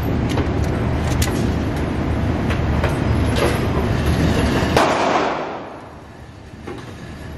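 Pistol shots in an indoor shooting range: several sharp cracks over the first few seconds, the loudest about five seconds in with a short echo off the range after it, over a steady low rumble.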